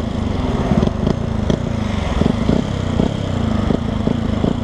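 Yamaha WR125X's 125 cc single-cylinder four-stroke engine running through a LeoVince LV One aftermarket exhaust with the dB-killer fitted, with the engine speed dipping and rising again while riding.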